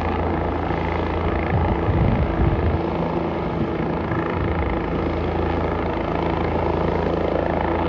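Helicopter rotor and engine running steadily close by, with a louder patch of low buffeting about two seconds in.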